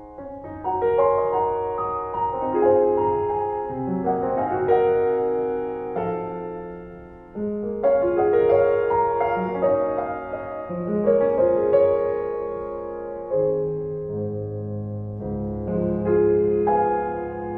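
Background piano music: a gentle melody over chords, with a short lull about seven seconds in before the next phrase begins.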